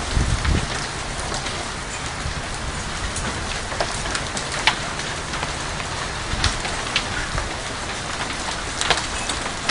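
Hailstorm pelting down with rain: a dense steady hiss of stones and drops hitting the patio, pool and ground, with scattered sharp cracks of single larger hailstones striking.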